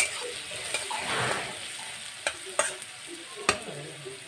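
Chopped onion sizzling as it fries in oil in a metal kadai, stirred with a flat metal spatula that scrapes round the pan and strikes its side with several sharp taps. The onion is being fried to a medium brown.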